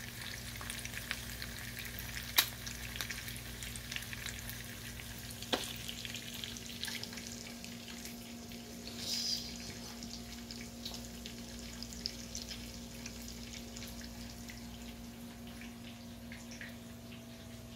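Bacon and eggs frying in a pan, a steady sizzle full of small crackles over a low steady hum. There is a sharp click about two and a half seconds in and another about five and a half seconds in, and a brief louder hiss near the middle.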